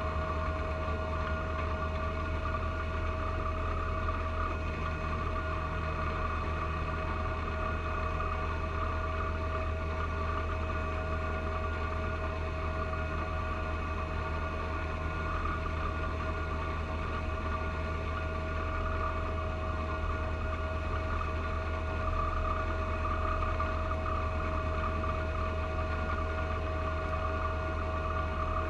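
Three-cylinder diesel engine of a John Deere 1025R compact tractor running steadily while it drives a front-mounted 54-inch snow blower through heavy wet snow, with a steady whine over the engine hum.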